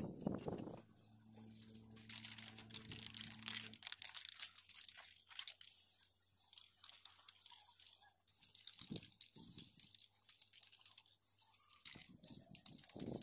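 Kraft paper crinkling and rustling as it is handled, with the hiss of an aerosol spray-paint can spraying steel pipes.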